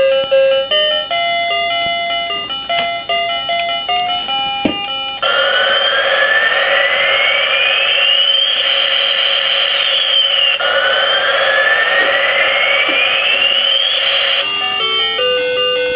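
A ride-on toy airplane's electronic sound module playing through its small speaker: a tinny beeping tune, then two long rising tones like a takeoff sound effect, then another short tune near the end.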